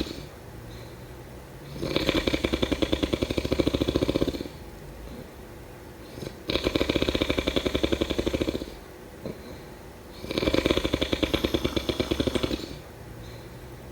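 A person snoring: three long, rattling snores about four seconds apart, with quieter breathing gaps between them.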